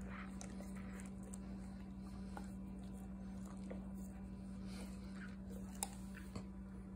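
Basset hound licking and smacking its lips on peanut butter: faint, scattered wet clicks of tongue and jaws, with two sharper clicks about six seconds in. A steady low hum runs underneath.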